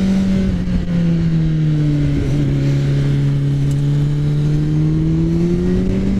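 Kawasaki Z900's inline-four engine running under way. Its pitch steps down about a second in and again about two seconds in, then climbs steadily as the bike pulls.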